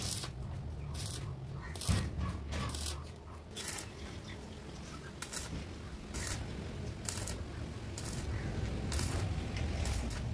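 Paint spray gun hissing in short, irregular bursts as it sprays paint onto a panel, over a steady low hum.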